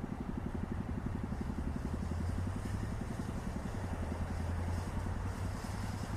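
An engine idling: a steady low rumble with an even, rapid pulse.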